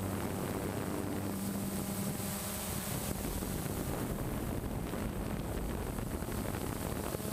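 DJI Phantom quadcopter's motors and propellers humming steadily as it hovers, picked up by the onboard camera, with wind rushing over the microphone. The low hum eases for a few seconds mid-way while the wind noise stays.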